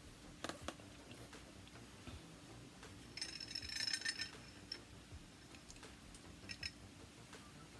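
Faint light clinks of a metal spoon against a ceramic mug while tea is stirred: a run of quick ringing clinks lasting about a second midway, with a few single soft clicks before and after.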